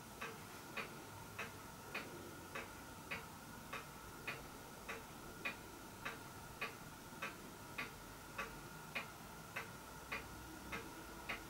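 Steady, even ticking, a little under two ticks a second, like a clock, with a faint steady hum under it.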